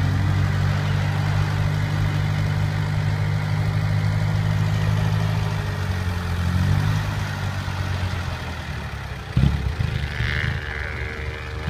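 Heavy diesel engine of a Hino Mega six-wheel dump truck running close by with a steady low drone, its pitch dipping about six seconds in. A sudden sharp thump comes a little after nine seconds, and the engine sound is rougher after it.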